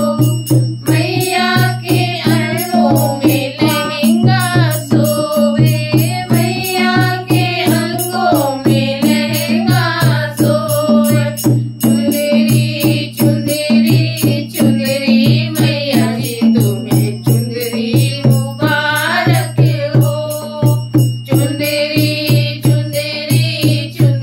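A woman singing a Hindi devotional bhajan, accompanied by a steady beat she plays on a dholak, a two-headed barrel drum held across her lap.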